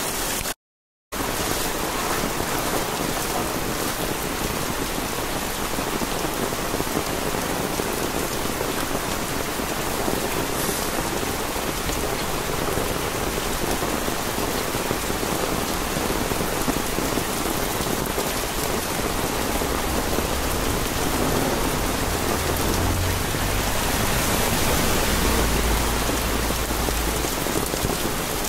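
Heavy rain falling steadily on pavement and roofs. The sound drops out completely for about half a second near the start. A low rumble joins the rain near the end.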